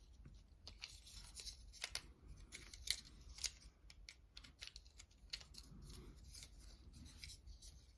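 Faint, irregular small clicks and rubbing of fingers handling small parts and wires.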